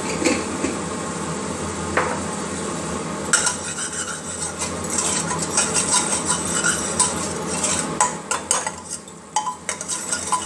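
A metal spoon stirring and scraping onion-garlic-tomato masala in a pressure cooker, with repeated clinks against the pot from about a third of the way in, over a faint sizzle of the paste frying in oil.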